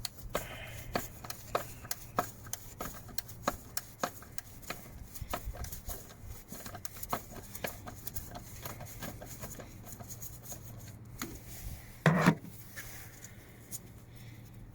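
A tool undoing the T25 Torx screw that holds a MAP sensor to the inlet manifold: a long run of small irregular clicks and scrapes, with one louder knock about twelve seconds in.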